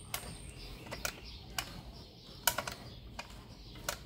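Choke and throttle linkage on a Yamaha 25 hp outboard's carburetor being worked by hand, giving six or so sharp clicks at uneven intervals.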